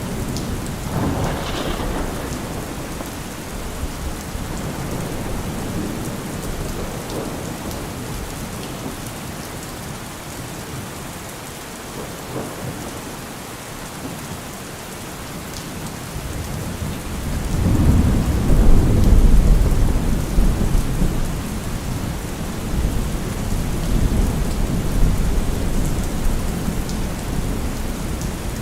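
Steady heavy rain falling, with thunder: a short crack near the start, and about two thirds of the way in a loud, low rumble that rolls on for several seconds.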